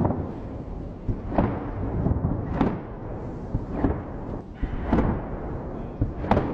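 Aerial firework shells bursting in a display: about six sharp booms, roughly one every second and a quarter, with a low rumble continuing between them.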